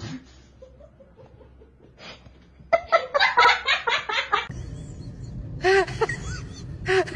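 A person laughing in a quick run of repeated bursts for about two seconds, partway through. Then a low steady rumble with a few short voice sounds.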